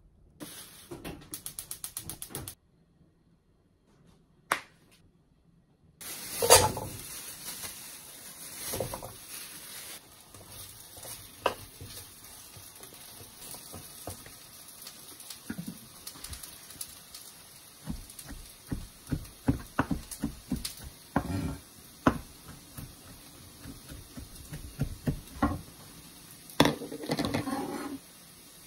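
Potatoes sizzling in a frying pan on a gas flame, stirred and knocked about with a wooden spatula, with a kitchen knife chopping greens on a wooden cutting board in runs of quick, even knocks. It opens with a quick run of clicks and a few seconds of near silence before the sizzling starts.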